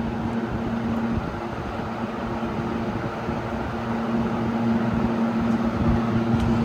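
Montgomery Ward Signature automatic box fan running on high speed: a steady rush of air over a constant motor hum, the fan moving a lot of air.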